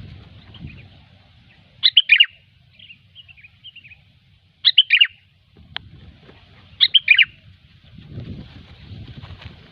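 Sooty-headed bulbul calling: three loud, short phrases of a few quick notes each, about every two and a half seconds, with softer chirps between them. A single click comes near the middle, and a low rumble sits underneath.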